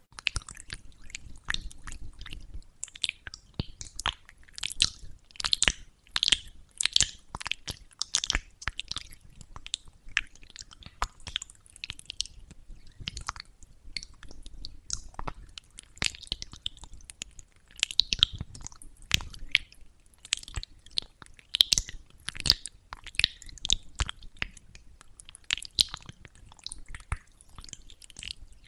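Rose-petal jelly (soft) face mask paste being scooped from a plastic bowl and spread over a face with a plastic spatula, heard close up as a dense run of quick, irregular sticky clicks and smacks.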